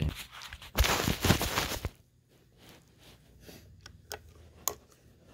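Loud rustling and rubbing of the handheld phone for about a second, then a few faint clicks from hands working the screws on a Go-Ped engine's carburetor.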